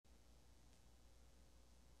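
Near silence: a faint steady low hum with light hiss, the noise floor of the soundtrack before anything starts.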